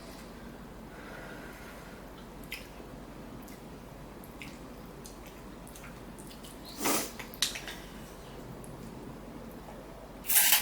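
Close-up eating sounds of instant ramen: quiet wet mouth noises and a few faint clicks, with two short slurps, one about seven seconds in and a louder one just before the end.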